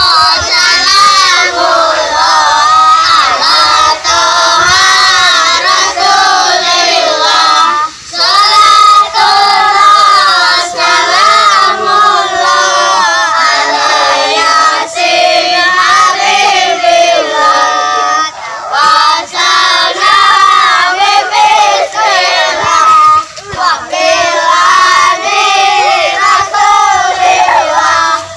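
A group of young boys singing sholawat, an Islamic devotional song in praise of the Prophet, together in unison. They sing it in long phrases with a few brief breaks.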